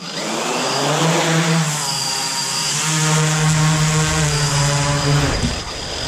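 ModalAI Sentinel quadcopter's four electric motors and propellers spinning up with a rising whine as it lifts off, holding a steady hum while it hovers briefly, then changing pitch near the end as it sets down.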